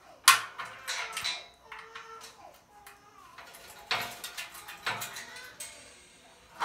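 Steel sewing-machine stand parts being handled and fitted together, clanking and clinking. There is a sharp metal knock just after the start, then a few lighter clinks, and two more knocks around four and five seconds in.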